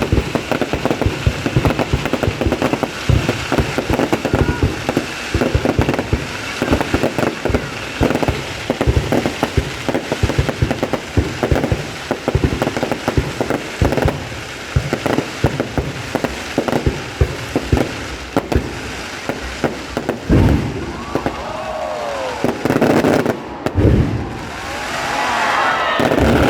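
Fireworks display: a rapid, dense volley of crackling bangs, thinning out near the end to a few separate louder booms.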